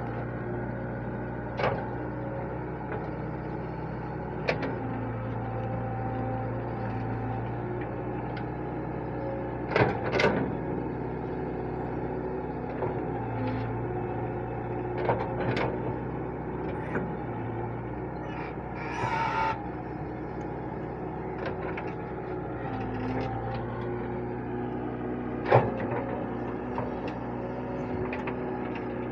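Hitachi wheeled excavator's diesel engine running steadily as the machine digs, with occasional sharp knocks and a brief hiss about two-thirds of the way through.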